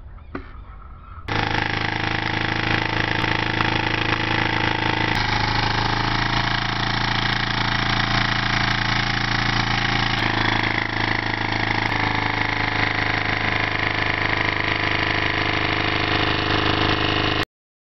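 Homemade tin-can Stirling engine running at speed: a loud, steady mechanical hum that starts abruptly about a second in, shifts in tone suddenly a few times, and cuts off near the end.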